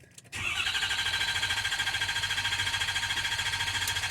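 Ford 6.7 L Power Stroke V8 diesel cranking on its starter without firing, its fuel pressure deliberately cut so it turns over but cannot start. It is a steady, rapid, even pulsing of compression strokes with a high starter whine, starting about a third of a second in. This is the crank-no-start used to listen for a cylinder with low compression.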